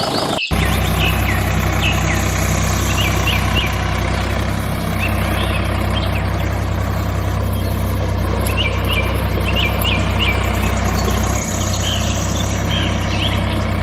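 A motor running steadily with an even low hum, starting abruptly just after the beginning and cutting off suddenly at the end. Birds chirp in short bursts over it.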